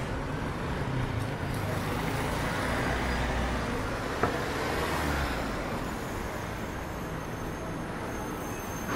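Street traffic, with a motor vehicle passing close that swells and fades over the middle few seconds. A single sharp click about four seconds in.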